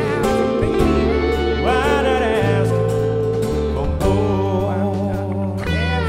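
Live band playing a slow country-rock ballad: acoustic and electric guitars with bass and drums, with a melody bending in pitch over sustained bass notes that change every second or two.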